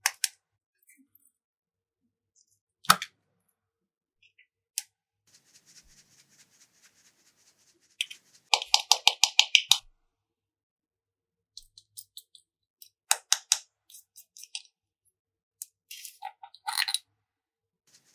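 Sharp clicks and taps of small hard objects being handled, spaced out with quiet gaps. About halfway through comes a fast run of about a dozen clicks in just over a second, and there are more clusters of clicks near the end.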